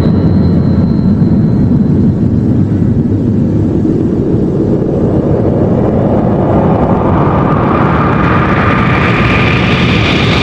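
Tokusatsu film sound effect of a loud, continuous engine-like rumbling roar, as of a jet or spacecraft. From about six seconds in it builds, its higher part rising steadily in pitch toward the end.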